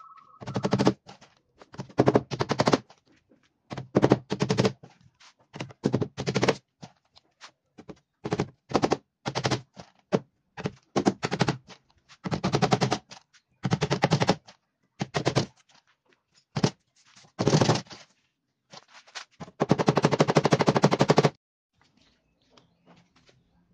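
Hammer driving small nails into a plywood panel, in bursts of very rapid blows separated by short pauses, with the longest burst near the end.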